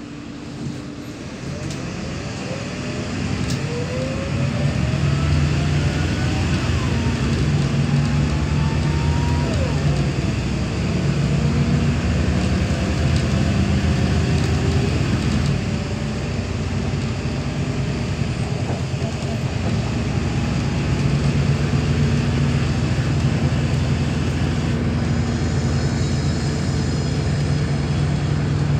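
Neoplan K4016td city bus pulling away and accelerating, heard from inside the cabin: the MAN D0826 six-cylinder diesel runs under load, growing louder over the first few seconds, while the ZF 5HP500 automatic gearbox sings in rising whines as the bus gathers speed.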